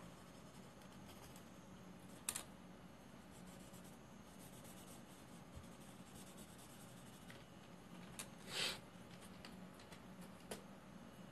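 Faint scratching of a graphite pencil shading on paper, with a few louder short scrapes along the way.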